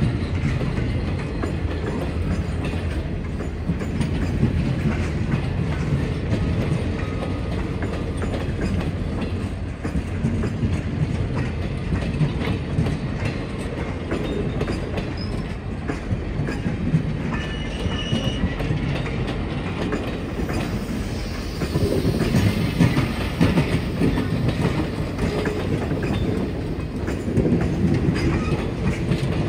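Passenger cars of the CSX Kentucky Derby train rolling past at speed, a steady rumble with wheels clicking over rail joints and a brief high wheel squeal about two-thirds in.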